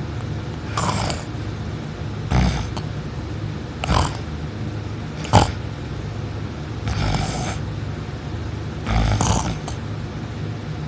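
A person snoring loudly in deep sleep: six snores about every one and a half to two seconds, the middle ones short and snorting, the later ones longer, over a steady low hum.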